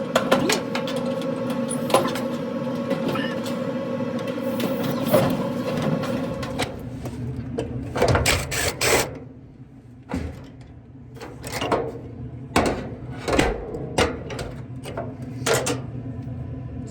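Knocks and clicks of dryer parts being handled, the idler pulley and its spring, over a steady hum that stops about six and a half seconds in.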